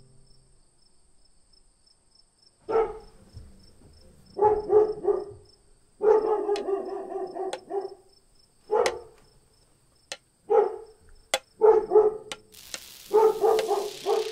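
A dog barking in bursts, single barks and short runs of two or three, with one longer drawn-out bark in the middle, over a faint steady chirping of crickets. A hiss rises near the end.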